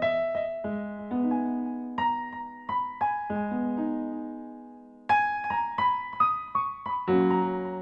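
Background piano music: gentle chords and melody notes, a held chord fading away before a livelier run of notes resumes about five seconds in.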